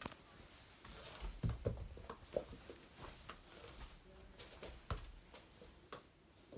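Cats playing with a ball: scattered light taps and a few heavier thumps, the loudest about one and a half seconds in and near five seconds.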